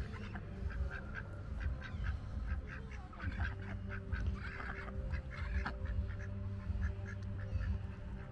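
Domestic ducks quacking in many short, repeated calls, over a steady low hum.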